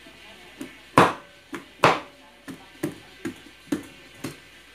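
Kitchen knife chopping into the hard rind of a large pumpkin: a series of about nine short knocks, roughly two a second, two of them much louder blows about a second and two seconds in. The rind is tough and hard to cut through.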